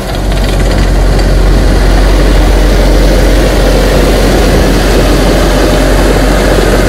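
Tracked snow groomer's diesel engine running with a loud, steady low roar as the machine drives in close by.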